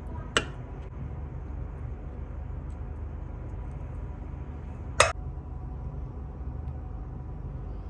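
Steady low background rumble, with a light clink of a metal ladle against a ceramic serving bowl about half a second in and a single sharper clink about five seconds in.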